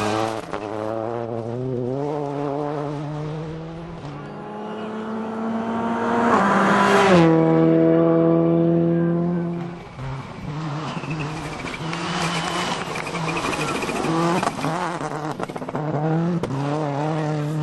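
Rally car engine revving hard and shifting gears, its note rising and falling repeatedly. About seven seconds in it passes close, loudest there, with a sudden drop in pitch as it goes by.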